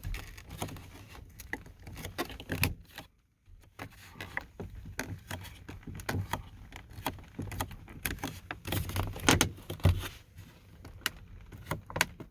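Plastic pieces of a 2004 VW New Beetle's inside door handle being pushed and snapped into place: a run of irregular clicks and knocks.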